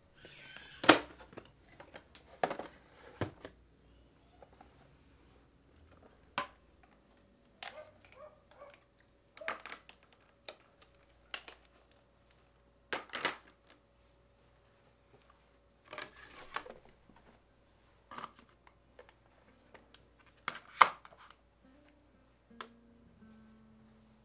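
Household items being handled and set down: about a dozen separate knocks and clicks, several seconds apart, with some rustling, the loudest about a second in. Soft acoustic guitar music comes in near the end.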